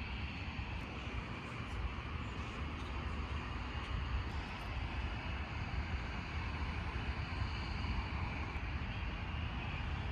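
Steady background noise: a low rumble with an even hiss over it, and no distinct events.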